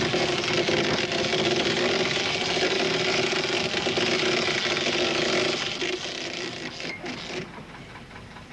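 Boat engine running steadily, fading away from about five and a half seconds in.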